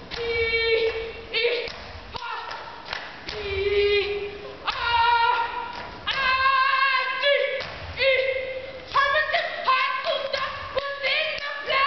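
Female voices singing unaccompanied, with a few sharp thumps among the singing.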